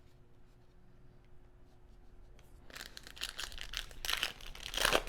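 Foil trading-card pack wrapper crinkling and tearing in the hands. It starts about halfway in as a dense crackle and peaks near the end.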